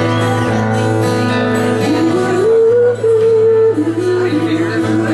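A woman singing with her own strummed acoustic guitar, holding long notes; about halfway through her voice steps up to a sustained high note, then steps back down.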